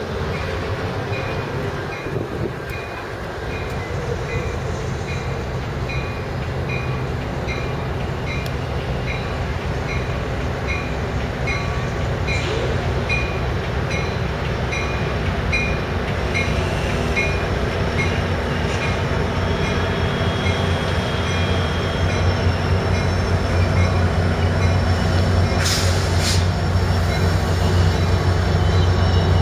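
Amtrak California F59PHI diesel-electric locomotive and its passenger train moving through the station, with the locomotive's bell ringing over and over at about two strokes a second. The low rumble of the diesel engine and rolling cars grows louder toward the end, with a sharp metallic clank near the end.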